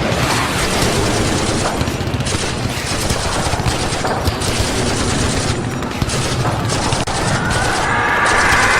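Battle sound effect of dense, continuous rifle and machine-gun fire, many shots overlapping into a steady crackle. In the last second or so a pitched, wavering sound rises over the gunfire.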